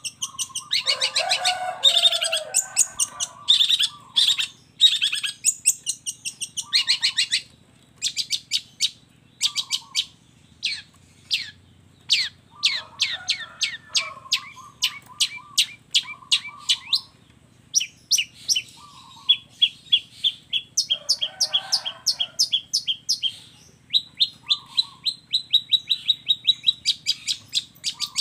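Long-tailed shrike (cendet) singing loudly in fast runs of short, sharp, high chattering notes, with a few lower harsh calls mixed in. Near the end the notes settle into an even, rapid repeated rattle.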